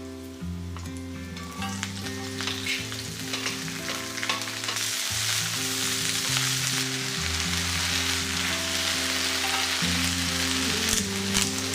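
Food sizzling as it is stir-fried in a pan, with clicks of a utensil against the pan. The sizzle grows louder about two seconds in and is strongest midway.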